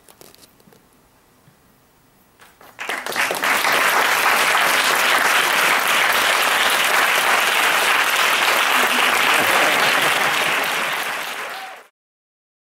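Audience applauding. After a quiet start with a few faint claps, full applause breaks out about three seconds in and holds steady and loud, then cuts off abruptly near the end.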